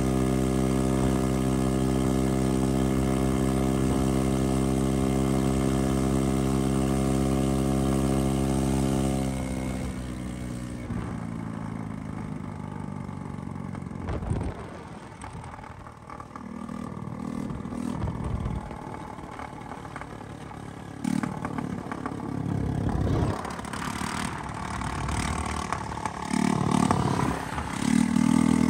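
150cc moped engine running at a steady high speed under throttle for about nine seconds, then the throttle eases off and the engine note drops. After that comes quieter, uneven engine and road noise with a few short louder swells.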